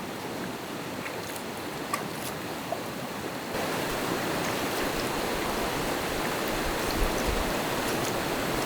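Rushing water of an ice-cold mountain stream, a steady hiss that gets louder about three and a half seconds in, with a couple of faint clicks.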